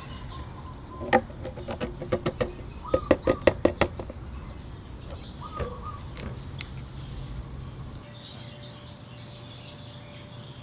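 Ratchet clicking in short quick runs as the transmission oil drain bolt is turned out of a Yamaha Vino 125 scooter's gear hub, with birds chirping in the background. Near the end the background changes to a quieter steady hum.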